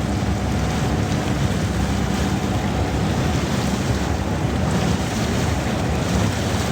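Motorized bamboo raft under way on a river: a steady low motor drone mixed with rushing water and wind noise on the microphone.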